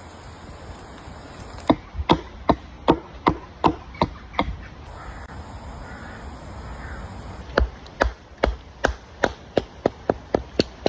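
Kent pattern axe chopping wood in two runs of quick, even blows, about two or three a second: about eight strikes starting about two seconds in, then about nine more after a short pause.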